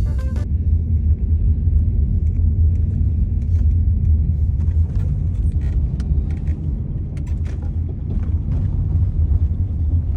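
Steady low rumble of a vehicle driving, heard from inside the cabin: engine and road noise, with a few faint ticks.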